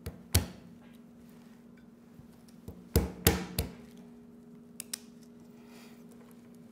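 Acorns being shelled by hand over a wooden counter: sharp cracks and knocks of shells, two at the start and a quick run of three about three seconds in, then two faint clicks, over a faint steady hum.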